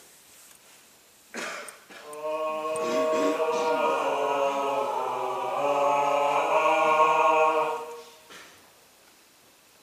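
Several voices singing a held chord without accompaniment. It enters about two seconds in, just after a short hiss, swells slightly and stops about eight seconds in.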